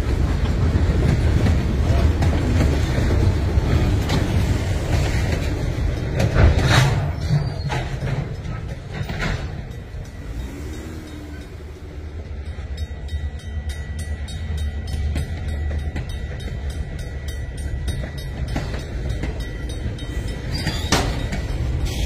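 Freight cars rolling slowly over the grade crossing: a steady rumble of wheels on rail with a few sharp knocks, fading about ten seconds in. After that, faint evenly spaced ticks, likely the crossing signal bell, and the rumble builds again as the next cars approach near the end.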